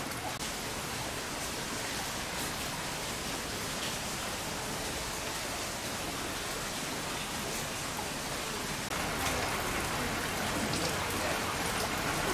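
Torrential rain falling steadily, an even hiss of rain on surfaces that grows louder about nine seconds in.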